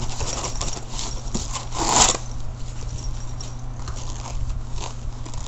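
Hands handling a padded camera bag and a piece of cardboard: irregular rustling and small clicks, with one louder rustle about two seconds in, over a steady low hum.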